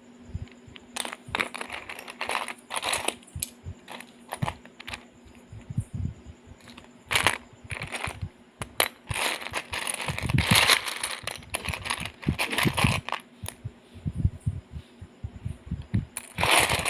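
Small plastic LEGO pieces clicking and rattling as they are handled, with rustling packaging in longer stretches about ten seconds in and near the end.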